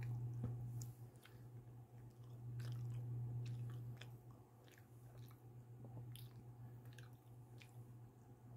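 Person biting into a slice of pizza and chewing it: short mouth clicks scattered through the chewing. A steady low hum runs underneath.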